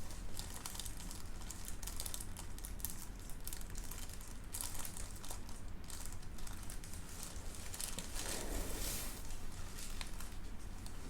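Crinkling and rustling with many small sharp clicks, from the patient's head and neck being handled and positioned for a chiropractic neck adjustment. A steady low hum runs underneath.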